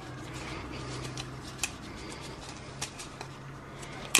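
Faint handling clicks and rustles from gloved hands fitting a rubber O-ring around a new oil filter, a few scattered ticks over a low steady hum.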